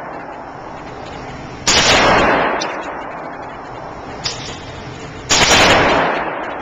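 Two handgun shots about three and a half seconds apart, each ringing out in a long echo off the walls of an indoor range, with a small click between them.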